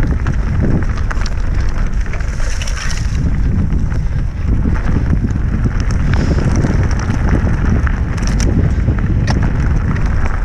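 Wind buffeting the microphone of a camera on a mountain bike riding fast down a loose, stony single track, under the crunch of the tyres on gravel and frequent sharp clicks and knocks from the bike rattling over the rough ground.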